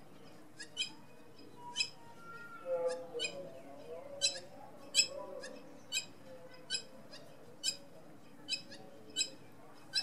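Hamerkop calling: a series of about a dozen short, sharp, high-pitched notes, a little under a second apart.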